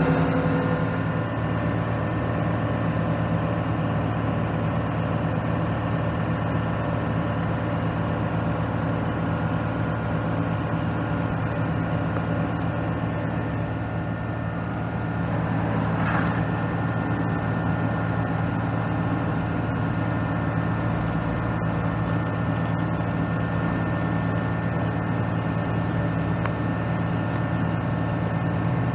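The diesel engine of an ABG Titan 226 crawler asphalt paver running steadily at idle, dipping slightly about halfway through before picking up again.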